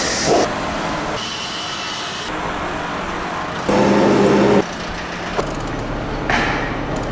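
Building-site plant noise in short cut-together stretches: diesel machinery running, with a louder stretch of engine and steady whine about halfway through.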